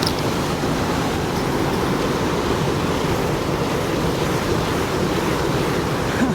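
Steady rush of flowing stream water, with wind buffeting the microphone.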